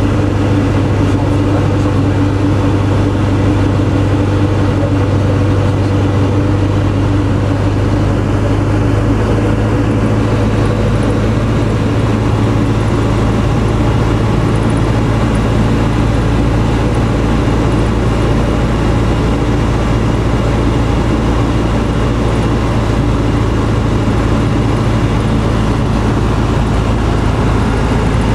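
Robin DR400 light aircraft's piston engine and propeller running steadily in flight, heard inside the cockpit as a loud, constant drone.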